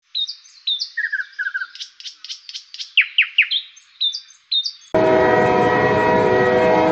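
Birds chirping and trilling in quick, repeated calls. About five seconds in, a steady train horn sound cuts in suddenly and holds as the loudest sound.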